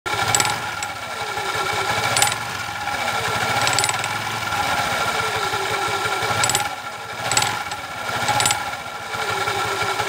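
Honda Activa scooter's single-cylinder four-stroke engine running with the CVT cover off, belt and clutch drum spinning, its speed wavering a little. Sharp ticks come at irregular moments, several times, the tick noise the uploader traces to the clutch shoes.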